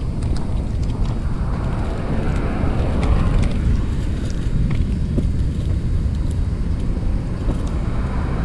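Road traffic: a car passes, swelling and fading between about two and four seconds in, over a steady low rumble, with a few light clicks.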